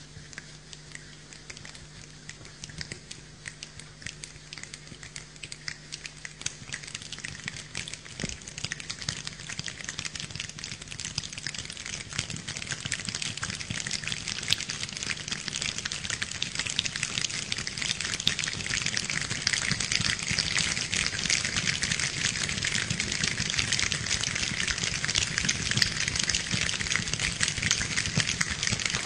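A large choir making the sound of rain with their hands: a dense patter of many small hand sounds that grows steadily louder and thicker, like a rainstorm building.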